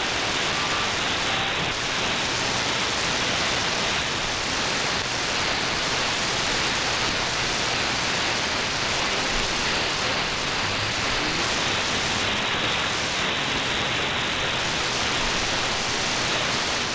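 Steady hiss of shortwave static from an SDRplay RSP1A software-defined receiver, with no clear voice or music coming through.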